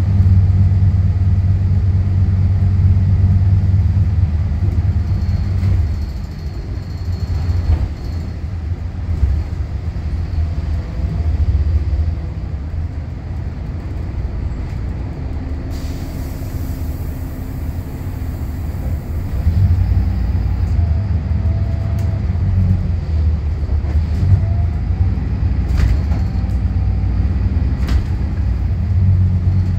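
Volvo B8RLE bus's six-cylinder diesel engine and automatic transmission heard from inside the cabin: a deep drone under power, easing off about six seconds in to a quieter hum, then pulling strongly again after a burst of air hiss a little past the halfway point.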